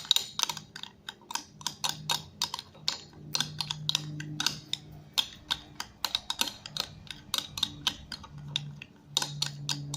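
A small spoon clicking and scraping against a bowl in quick, irregular taps, stirring glue as it thickens into slime. A faint low hum comes and goes underneath.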